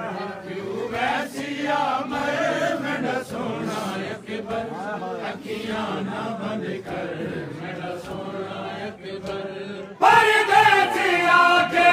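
Group of men chanting a noha, a Shia lament sung in unison, with the slaps of matam chest-beating. About ten seconds in the singing suddenly gets much louder.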